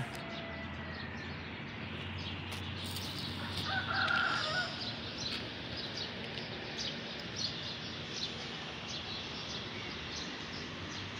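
Outdoor morning street ambience: a steady background with scattered short bird chirps, and a brief louder bird call about four seconds in.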